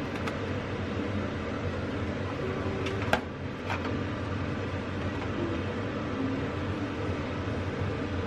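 Steady machine-like whir with a faint hum, broken by a few light clicks; the loudest click comes about three seconds in.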